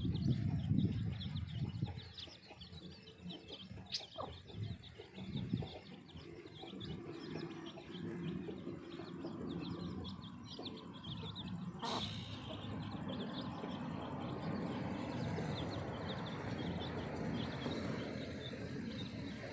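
Baby chicks peeping, many short high chirps one after another, with a hen beside them. A louder low sound fills the first two seconds, and there are sharp clicks twice, about four and twelve seconds in.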